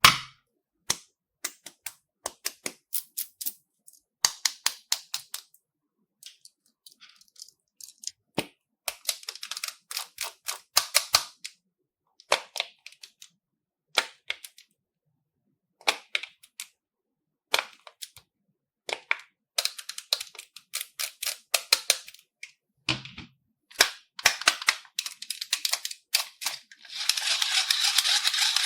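Slime being squeezed and worked by hand, trapped air popping in quick runs of sharp clicks, several a second, with short pauses between runs. Near the end the popping thickens into a dense crackle.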